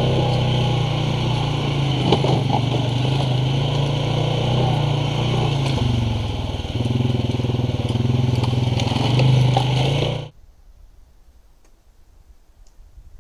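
ATV engine running while riding along a trail, its pitch easing off about six seconds in and then picking up again. The engine sound cuts off suddenly near the end, leaving only a faint background.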